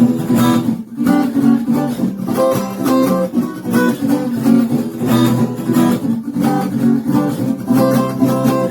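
Acoustic guitar strummed in a steady, driving rhythm: an instrumental passage of a rock song with no singing.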